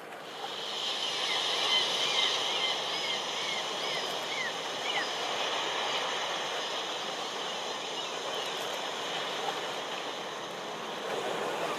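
Added beach ambience: a steady wash of surf noise, with a quick series of short high bird chirps starting about a second in and stopping at about five seconds.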